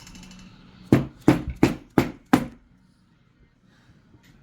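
Small hammer tapping a pin punch to drive out the short extractor pin of a Marlin Model 60 bolt: five sharp metallic taps, about three a second.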